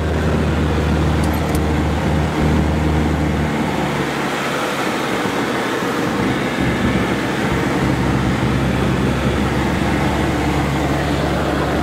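Light aircraft's piston engine and propeller running in flight, heard from inside the cabin with wind noise; the plane is a CubCrafters Carbon Cub. The low engine note weakens about three and a half seconds in, as the plane dives along a slope, and comes back a few seconds later.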